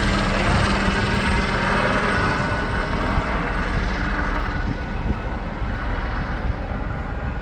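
AgustaWestland helicopter's rotor and turbine noise: a dense, pulsing din that slowly fades.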